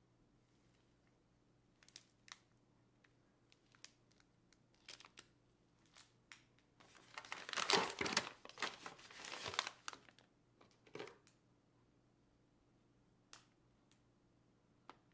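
Plastic dog-treat pouch and paper packing crinkling and rustling as they are handled in a cardboard box. Scattered light rustles and taps come first, then a few seconds of louder crinkling midway.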